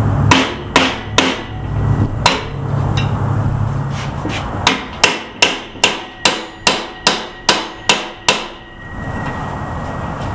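Hammer striking a screwdriver wedged between the ball joint and the upper A-arm of a 1977 Chevy El Camino, driving it in to break the stuck ball joint free. The sound is metal on metal: a few separate blows, then a quick, even run of about ten strikes, roughly two and a half a second.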